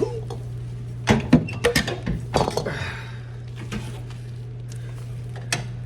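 Several knocks and metallic clanks from compressor parts and hardware being handled during a refrigerator compressor swap. They cluster from about one to three seconds in, with one more near the end, over a steady low hum.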